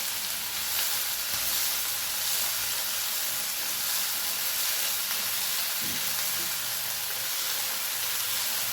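Chopped tomato and onion frying in hot oil in a pan, a steady sizzle as the tomato softens.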